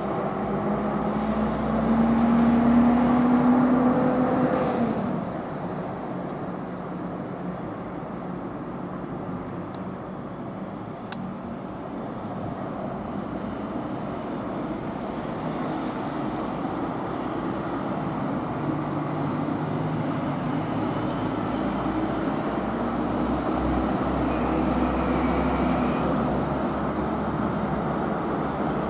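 Road traffic rumble around the microphone. A louder vehicle early on has an engine note that rises as it accelerates, then fades about five seconds in, leaving a steady traffic hum.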